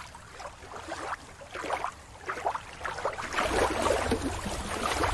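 Water splashing and sloshing in the shallows, quieter at first and louder for the last couple of seconds, with a low rumble underneath.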